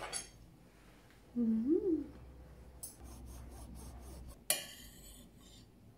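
A steel knife and fork rubbing and clinking on a ceramic plate as they saw at a plush toy, with a few light ticks around three seconds in and one sharp clink about four and a half seconds in. About a second and a half in there is a short hummed sound that rises and falls in pitch.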